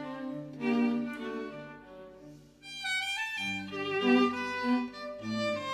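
Background music on bowed strings, a violin melody over lower strings. It dips briefly about halfway through, then a new phrase begins.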